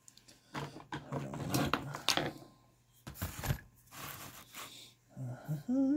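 Small metal hand tools and parts clinking, rattling and scraping in short clusters of clicks, with one louder knock about three seconds in. A man starts humming right at the end.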